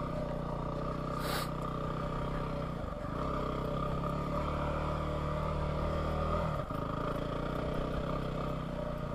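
Yamaha WR250R dual-sport motorcycle's 250 cc single-cylinder four-stroke engine running steadily while the bike is ridden along a dirt trail. The engine note dips briefly about six and a half seconds in.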